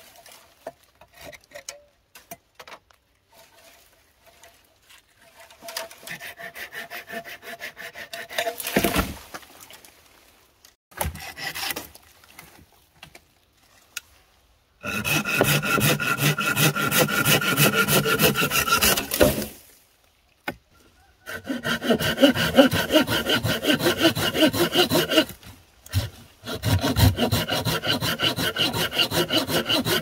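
A saw cutting through bamboo in three long spells of fast, rasping strokes, starting about halfway in. Before that come quieter, scattered scraping strokes.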